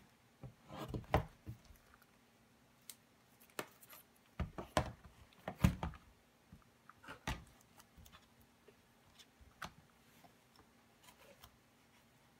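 Plastic shrink-wrap being picked at and torn off a cardboard hobby box of trading cards, in scattered crinkles and scrapes, with the box handled on the desk; the loudest handling noises come about a second in and about five and a half seconds in, and it grows sparser in the second half.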